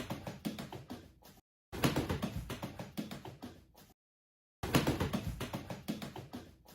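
Duck's webbed feet pattering fast on ceramic tile as it runs: three runs of quick taps, each starting loud and trailing off, cut off abruptly between them.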